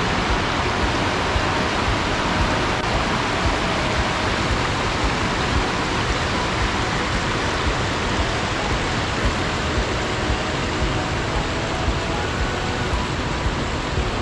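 A fast river rushing over rocks in rapids below a waterfall, a steady, even rush of water.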